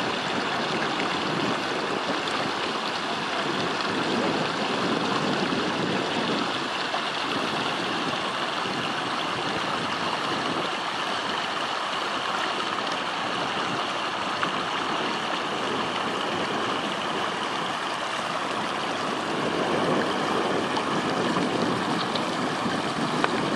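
Shallow river water rushing over rocks, a steady hiss.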